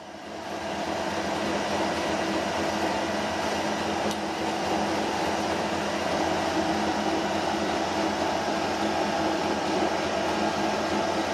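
Steady mechanical hum with a few fixed tones from the running rig, the driven alternator that powers the homemade HHO generator, while the micro torch burns; the hum comes back up over the first second, with a faint click about four seconds in.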